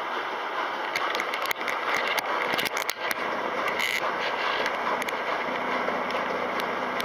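Kelvinator K605 washing machine running through its regular wash cycle: a steady churning noise, with a run of sharp clicks and scrapes from about one to four seconds in.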